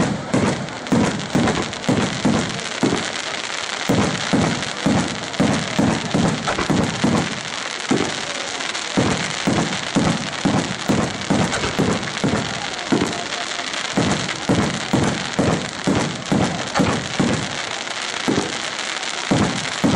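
Aerial firework shells bursting in quick succession, about two booms a second with a few brief lulls, over a continuous high crackle and hiss from the bursting stars.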